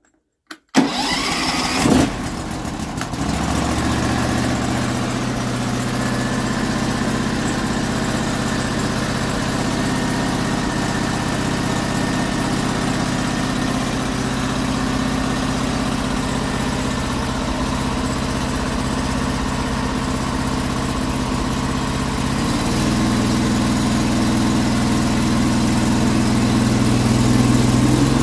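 Gas engine of a Norwood HD36 portable bandsaw mill starting about a second in and running steadily while it warms up. Near the end it steps up in speed as the blade is brought up toward full speed.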